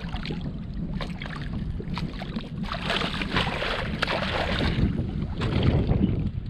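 Strong wind buffeting the microphone over waves slapping and splashing against a kayak's hull. The splashing swells for a couple of seconds in the middle and again near the end.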